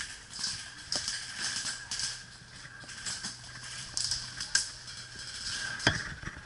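Footsteps and gear rustling as an airsoft player moves, with a few single sharp clicks: one about a second in, one about four and a half seconds in, and the loudest just before the end.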